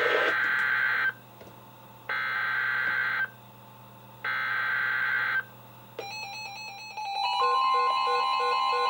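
NOAA Weather Radio SAME alert header: three one-second bursts of buzzing digital data tones with short silent gaps, signalling a new severe thunderstorm warning. About six seconds in, weather alert radios start sounding their alarm beeps and chimes, joined by a steady warning alarm tone.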